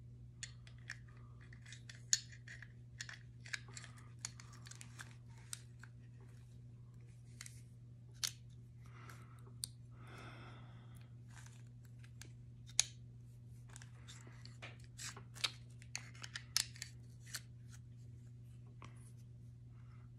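Small metal clicks, taps and scrapes of antique Colt Pre-Woodsman pistol parts being handled and fitted during reassembly, over a steady low hum.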